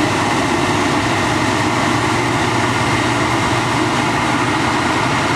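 New Holland FX450 self-propelled forage harvester at work: engine and chopping gear running under steady full load as it chops wholecrop silage and blows it up the spout into a trailer. A loud, even drone with no change in pitch.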